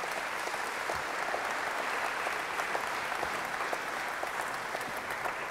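Audience applauding steadily: many hands clapping at once at the end of a talk.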